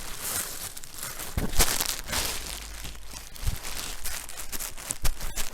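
A plastic bag crinkling and rustling irregularly over a towel-covered chest compress, with a few sharper crackles.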